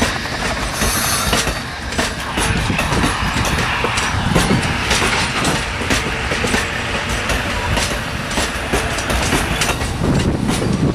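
Amtrak Superliner bilevel passenger cars rolling past close by: steady rolling noise of steel wheels on rail, with repeated clicks as the wheels pass over rail joints.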